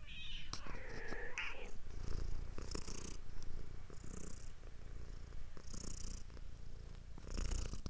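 Domestic cat purring in low rumbles while it wrestles a leather strap, with several short rustling scratches of claws and strap against the carpet.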